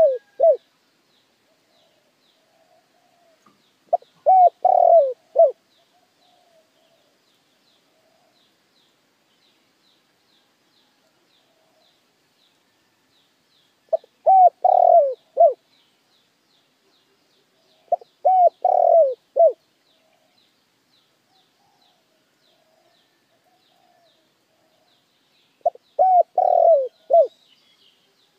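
Male spotted dove cooing: four phrases of several coos each, separated by long gaps. This is the decoy dove's call, used to lure wild doves.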